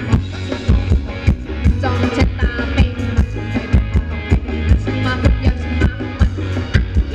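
Thai ramwong dance music played by a live band: a steady drum-kit beat of about three strokes a second under melodic instruments.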